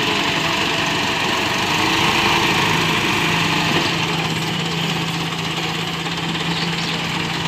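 Diesel farm tractor engine running steadily at low revs as the tractor moves slowly.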